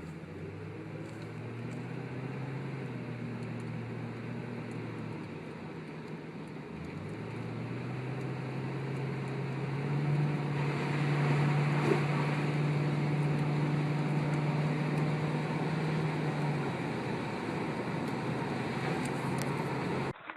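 Car engine and road noise heard while driving. The engine note dips about seven seconds in, then climbs and holds as the car gathers speed, and the noise grows louder.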